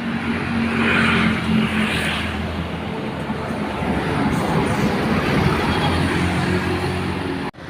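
Large bus engine running close by with road and traffic noise, steady throughout. The sound cuts out for an instant near the end.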